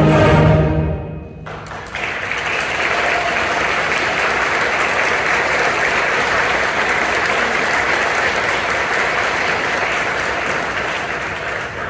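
An ensemble's final chord rings and cuts off about a second in, and an audience then applauds steadily, thinning out near the end.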